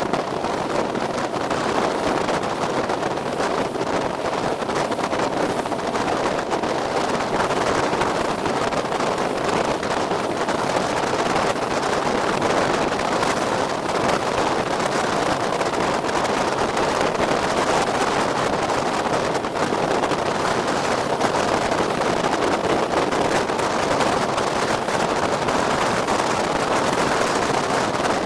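Small motorboat running steadily across open water, with wind buffeting the microphone; a constant, unchanging noise throughout.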